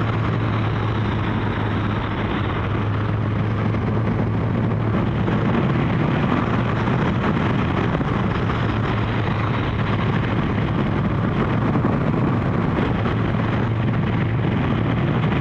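Kawasaki GPZ1100 inline-four motorcycle running at a steady cruise, heard under wind and road noise at the rider. The engine note holds even, with no change in speed.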